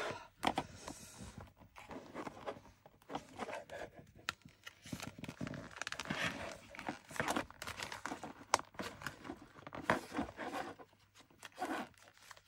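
Stiff paper pages of a handmade journal rustling and crinkling in the hands, with scraping as a needle and ribbon are worked through punched holes a few pages at a time.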